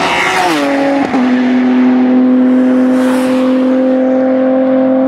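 Ginetta race car passing at speed, its engine at full song: the engine note drops in pitch about a second in as it goes by, then holds one steady note.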